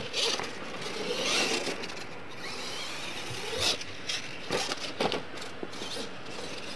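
Radio-controlled monster truck running on a dirt track: motor and tyres on loose dirt, with several sharp knocks from landings and chassis hits about three and a half to five seconds in.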